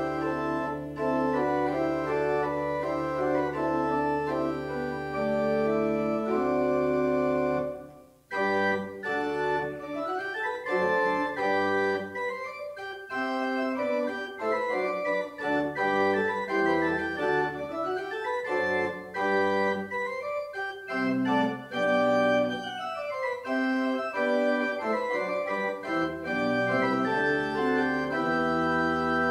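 Organ playing a church prelude: sustained chords over a held low bass note, a short break about eight seconds in, then flowing lines that rise and fall over changing chords.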